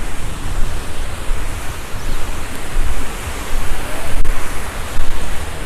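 Steady rush of river water pouring over a dam, with wind buffeting the microphone in uneven low rumbles.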